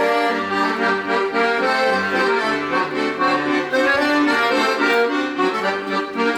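Accordion music playing, held notes and chords with a melody over them.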